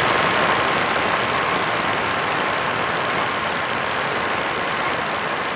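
A steady rushing, hiss-like noise from a trailer sound effect, with a faint steady tone in it. It fades slowly.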